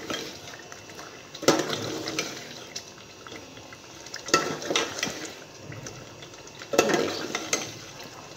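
Metal spoon stirring stuffed eggplant curry in an aluminium pot, scraping against the pot three times, about two and a half seconds apart, over the masala sizzling underneath.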